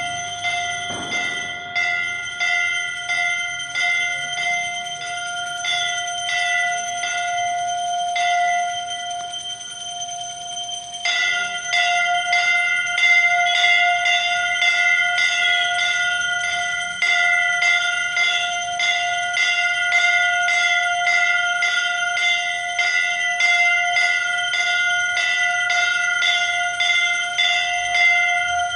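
Temple bell rung continuously during aarti, struck about twice a second so that its ringing note never dies away. The strikes falter for a moment and come louder from about eleven seconds in.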